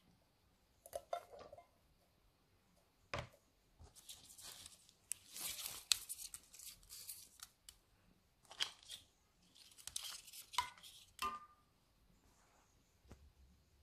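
Repeated bursts of rustling and tearing, with a sharp knock about three seconds in, as pandan leaves and cinnamon sticks are handled and dropped into a pot of coconut milk.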